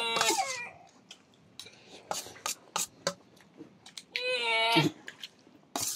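Baby fussing: a short high-pitched cry at the start and another about four seconds in, with faint clicks and smacks in between.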